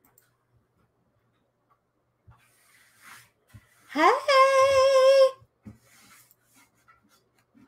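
A woman's voice sliding up into one held, sung 'ooh' note with a slight wobble, lasting about a second and a half, a few seconds in.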